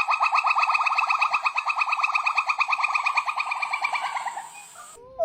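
A monkey's rapid trilling call: a fast, even run of short rising notes, about a dozen a second, that fades out near the end.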